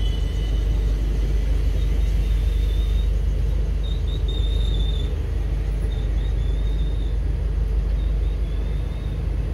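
ICF passenger coach rolling along the track, heard from on board: a steady, loud low rumble of wheels on rails, with a faint high wheel squeal coming and going a few times through the middle.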